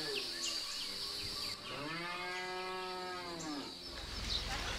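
A cow mooing: the tail of one moo as it begins, then one long moo of about two seconds starting about a second and a half in.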